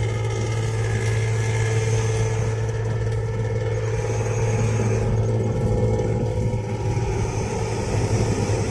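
Intercity bus cruising on a highway with a 'snoring' exhaust: a steady, deep, gruff rumble from its exhaust pipe, described as fierce.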